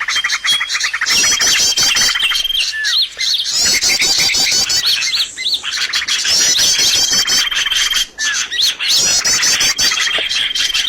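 Bird-lure recording of small songbirds: dense, busy chirping and twittering with trills and short whistled notes, the same phrases repeating every few seconds as a loop.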